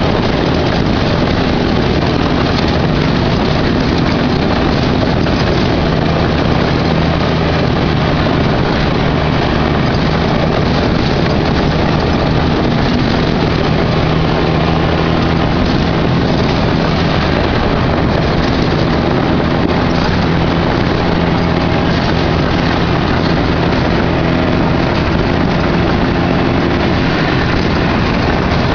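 Off-road buggy engine running at a steady pace while driving across desert dirt, heard from on board under a constant rush of wind and road noise.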